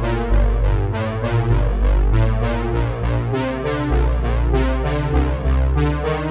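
Background music: a synthesizer-keyboard tune with a heavy bass line and a steady beat.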